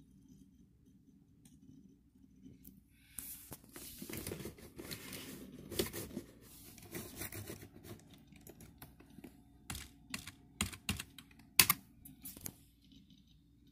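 Rustling and rubbing handling noise from the recording phone brushed against clothing, with several sharp clicks in the second half, over a faint steady low hum.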